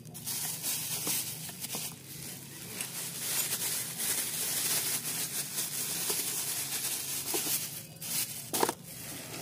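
Clear plastic wrapping crinkling and rustling as the aluminium brush-cutter shaft inside it is handled, a dense crackle that comes and goes and eases off near the end.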